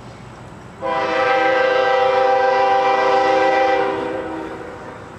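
Air horn of CSX GE ES40DC locomotive #5256, leading train P918, sounding one long blast of a multi-note chord for about three seconds before fading out.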